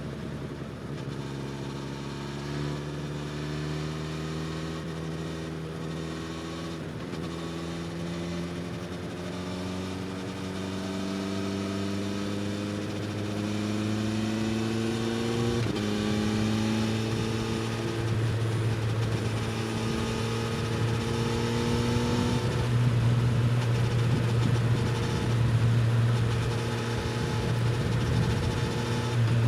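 Suzuki GSX-S1000 inline-four motorcycle engine through an Austin Racing slip-on exhaust, pulling hard under throttle. Its pitch climbs steadily and grows louder over about fifteen seconds, jumps suddenly about halfway through, then holds high with a small drop near the end.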